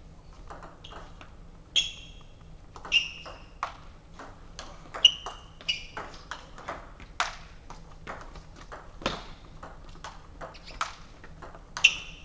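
Table tennis ball being hit back and forth: sharp, irregular clicks of the celluloid ball off the bats and bounces on the table, several with a brief ringing ping, a few hits much louder than the rest.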